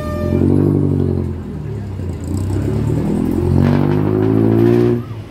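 A vehicle engine revving, its pitch steady at first and then rising as it speeds up, before cutting off abruptly near the end. A horn tone stops just as it begins.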